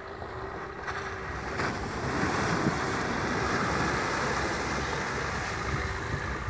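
Water splashing and rushing as a Maruti Suzuki S-Cross wades through a shallow stream. The splashing builds about two seconds in and then holds steady, over a low wind rumble on the microphone.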